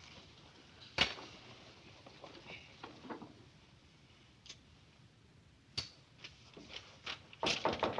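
Quiet room tone broken by a sharp click about a second in, then a few light knocks and handling sounds at a desk that come closer together near the end.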